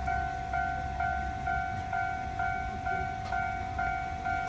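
Japanese railway level crossing's electronic warning bell ringing in an even rhythm of about two dings a second, over a low rumble.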